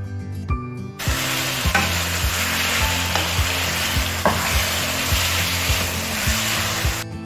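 Fried hake pieces in pepper sauce sizzling in a frying pan as a wooden spoon stirs them. The sizzle cuts in about a second in and cuts off just before the end, over background music with a steady beat.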